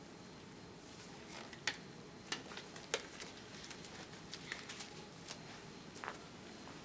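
Disposable examination gloves being pulled onto the hands: a scattering of short, sharp crackles and snaps of the thin glove material, the sharpest in the second and third seconds, over faint room hiss.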